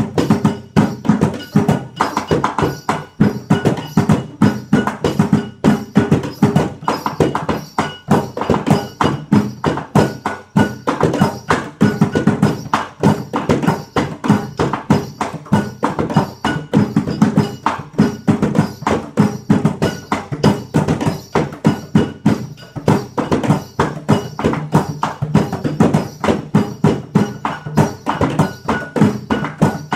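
Group improvisation on found-object percussion: hands slapping a wooden box, and sticks and hands beating a plastic bucket, a plastic water jug and a metal pot, in a dense, continuous rhythm of several strikes a second.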